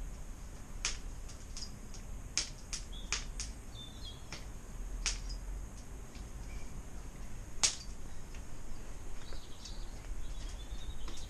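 Scattered sharp clicks and ticks at irregular intervals, one louder click about two-thirds of the way through, with faint bird chirps and a low steady rumble in the background.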